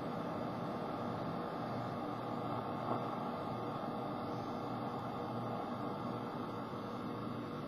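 Circuit-bent toy electronic drum-pad kit putting out a steady, noisy drone with faint held tones, while hands touch its added metal contact posts.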